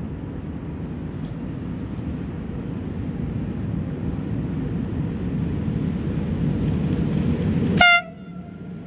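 FS E633 electric locomotive and its train of empty freight wagons approaching, a steady rumble that grows slowly louder. Near the end comes one short, loud horn blast as the locomotive draws close.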